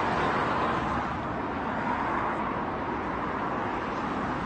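Steady car noise as a crash-damaged car with a buckled front wheel is driven in reverse to get it off the kerb.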